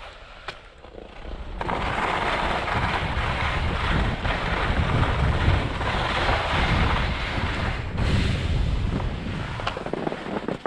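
Wind rushing over the camera microphone together with skis hissing and scraping over packed snow during a run. It gets much louder about a second and a half in.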